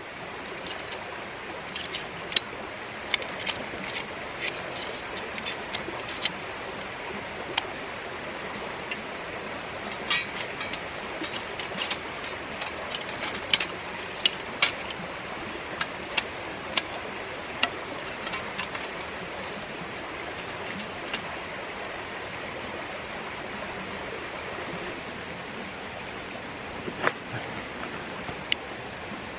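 Sharp metallic clicks and clinks of a Lixada folding stainless-steel wood stove's panels being unfolded and slotted together, many in the first half and a few more near the end, over the steady rush of a creek.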